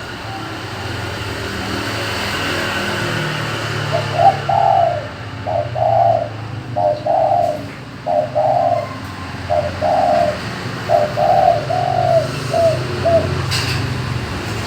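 A dove cooing: a series of about eight low, rolling coo phrases in quick succession, over a steady low hum.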